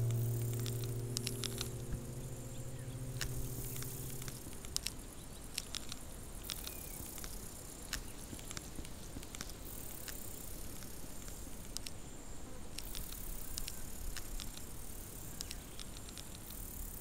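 A low held note from the film's music score fades away over about the first four seconds, leaving a faint hiss with scattered sharp clicks and crackles.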